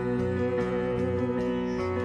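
Live worship band playing a short instrumental passage between sung lines: held chords over a steady beat.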